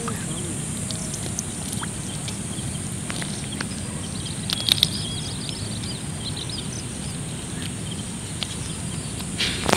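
Steady rural outdoor background with an even, high drone of insects. A brief cluster of small clicks and ticks comes about four and a half seconds in.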